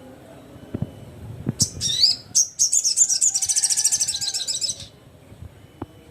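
Sogon sunbird singing: a few sharp, high-pitched chirps about a second and a half in, then a rapid, high twittering trill for about two seconds that stops suddenly. A few soft low knocks come before it.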